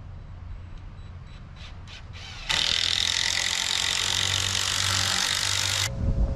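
A power tool runs loudly with a steady whine for about three and a half seconds, starting and stopping abruptly, and a thump follows near the end. A few light clicks come just before it.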